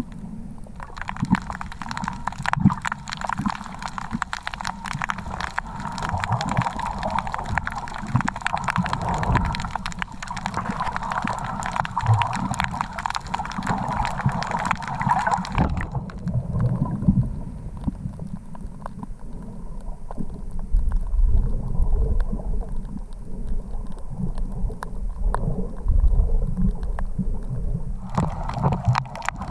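Underwater crackle of many small sharp clicks, taken for crayfish sounds, over low surging water noise. About halfway through, the crackle turns muffled for roughly twelve seconds, then brightens again near the end.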